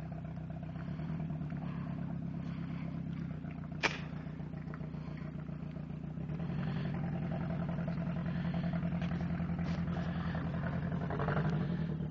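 A car engine running steadily, picking up a little about six seconds in, with a single sharp click about four seconds in.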